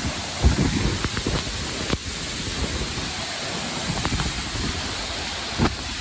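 Waterfall pouring onto rocks and the stream below: a steady rush of falling water, with wind gusting on the microphone and a few sharp clicks.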